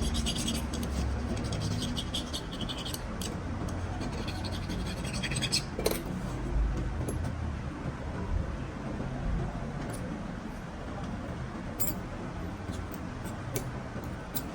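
Scratching and scraping with light clicks of small metal parts being worked by hand, busiest over the first six seconds with one sharper click about six seconds in, over a low steady rumble.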